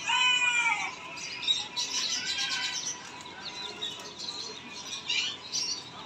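A cage full of young chicks peeping, with many short high chirps scattered through. In the first second there is a longer, louder wavering call that falls at its end.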